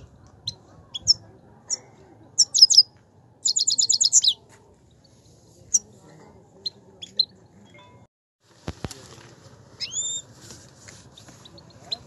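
Himalayan goldfinch singing: quick runs of high twittering notes, about ten a second, between scattered single chirps and a short whistle, with one sharp click about nine seconds in.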